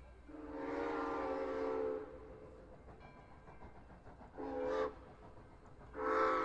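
Steam locomotive chime whistle on the Southern 630 and 4501 doubleheader, blowing a long blast, then a short one, then another long blast that begins near the end, each a chord of several steady tones.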